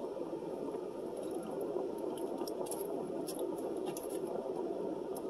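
Black plastic fork picking at fried seafood in a foam takeout tray lined with foil: a few faint clicks and crinkles, most of them between two and four seconds in, over a steady low hum inside a car.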